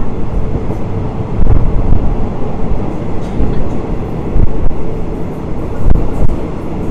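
Steady low rumble of a moving third-class passenger train, heard from inside the carriage as the wheels run on the rails.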